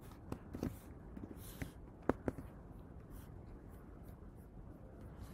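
Scattered light clicks of a computer keyboard, a few taps in the first couple of seconds with one sharper click about two seconds in.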